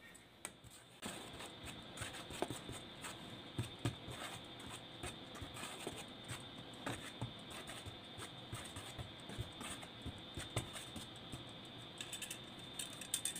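Dry flour being stirred in a metal loaf pan with a spoon and a wire whisk: soft scraping with many small irregular taps as the utensils knock the pan.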